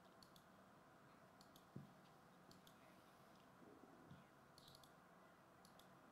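Near silence: room tone with a few faint, scattered clicks, one a little louder just under two seconds in.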